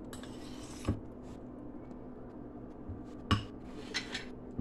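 A metal spoon stirring thick gram-flour batter in a ceramic bowl, clinking sharply against the bowl twice and lightly a few more times near the end, over a faint steady hum.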